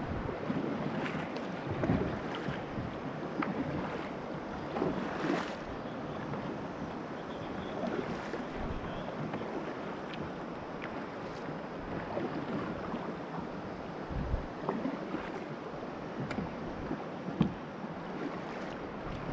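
Kayak being paddled on a river: water splashing and rushing along the hull with paddle-blade strokes, a few light knocks, and wind buffeting the microphone.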